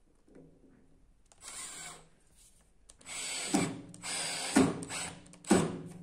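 Cordless drill-driver driving small screws into a plywood disc in several short whirring runs, three of them ending in a sharp click.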